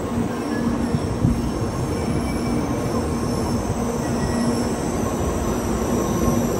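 Shinkansen bullet train rolling along a station platform at low speed: a steady rumble of wheels on rail with a steady electric hum over it.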